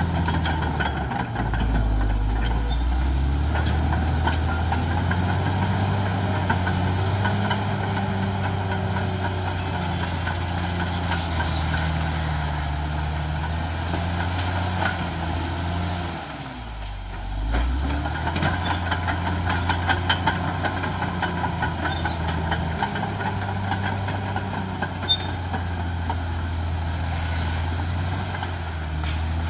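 Caterpillar D6R XL bulldozer's diesel engine working steadily under load, with frequent sharp clicks and cracks throughout. About two-thirds of the way through, the engine note sags and drops briefly, then picks up again.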